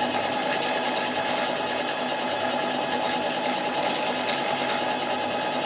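Harbor Freight 7x10 mini lathe running steadily, with a constant hum and a thin high whine, while its tool takes a light cut on a Husqvarna 372 chainsaw cylinder.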